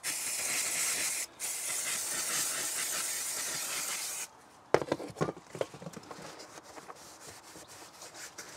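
Aerosol brake cleaner spraying in a steady hiss for about four seconds, with a brief break a little over a second in, then cutting off. After that come light knocks and rubbing as a rag wipes the engine bay down.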